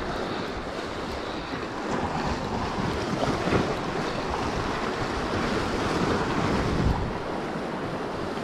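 Sea waves surging and washing over the rocks at the water's edge, with wind buffeting the microphone.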